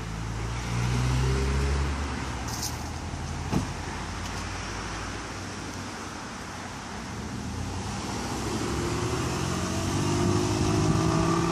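Car engine running at the curb, then pulling away, its pitch rising as it accelerates near the end. A single sharp click sounds about three and a half seconds in.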